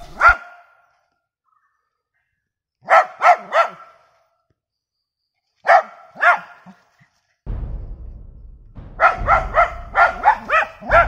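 A dog barking angrily in short volleys: a single bark, three quick barks about three seconds in, two more around six seconds, then a fast run of about three barks a second from about nine seconds, over a low background rumble.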